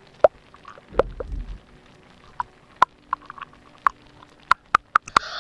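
Close-miked ASMR mouth sounds: irregular wet lip and tongue clicks, about a dozen, coming quicker toward the end. There is a brief low rumble about a second in.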